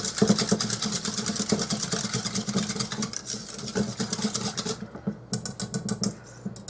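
Wire whisk beating a thin liquid sauce in a stainless steel bowl: rapid, even clicking as the wires strike the metal, lighter toward the end.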